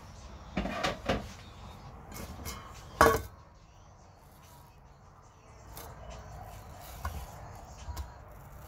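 An enamel bowl knocked and set down on a stone countertop, with a few light knocks early and one loud ringing clank about three seconds in, followed by faint knife scraping as a mango is peeled over the bowl.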